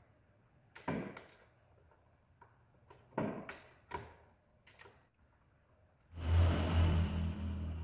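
A few short metallic clicks and knocks as a Y-shaped socket wrench works the throttle body bolts loose. Near the end comes a louder, steady low drone with hiss that lasts about two seconds.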